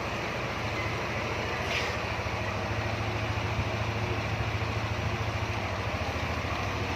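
Yamaha Nmax scooter's single-cylinder engine idling steadily.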